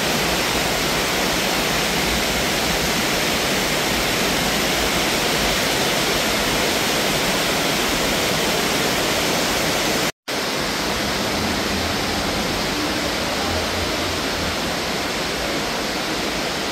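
Steady rush of water echoing through the cave passage, an even, loud hiss with no clear pitch. It cuts out completely for a moment about ten seconds in.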